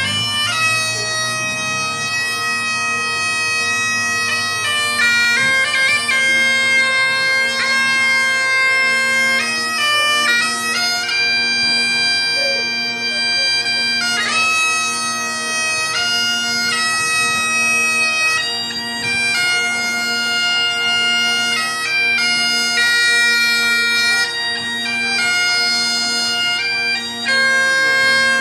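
Bagpipes playing a slow tune of long held notes over their steady drones.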